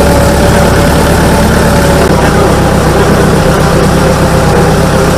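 Motor vehicle engine running steadily: a loud low hum with a faint steady whine above it, heard from on board the moving vehicle.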